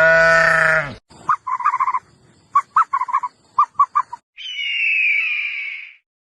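Animal calls in quick succession: one long pitched call, then a run of short clipped calls, then a higher call that falls slowly in pitch.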